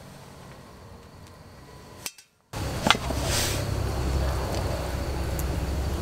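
Faint quiet background, then after a cut a sharp metal clink about three seconds in from steel camp cookware being handled, followed by light handling noise over a steady low rumble.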